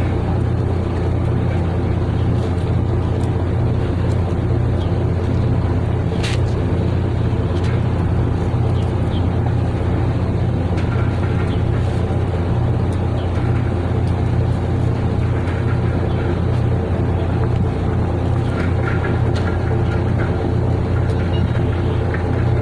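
Fishing boat's engine running with a steady, unchanging low drone. A single sharp click sounds about six seconds in.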